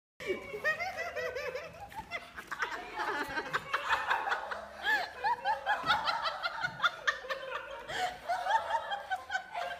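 A person laughing, one short laugh after another with hardly a pause, with quick light clicks mixed in.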